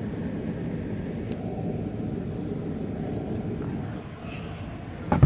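Outdoor air-conditioner condenser unit running: a steady low rumble of its fan and compressor, easing slightly about four seconds in. A loud knock right at the end.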